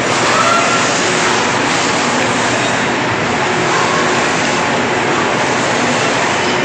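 Steady, loud din of a tractor assembly plant floor: machinery noise on the production line, even and unbroken, with a few faint tones over it.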